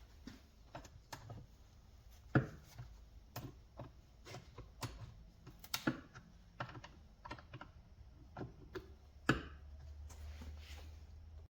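Irregular light clicks and knocks of a chainsaw chain and bar being handled as a new chain is fitted around the sprocket and onto the bar, with a few sharper knocks among them.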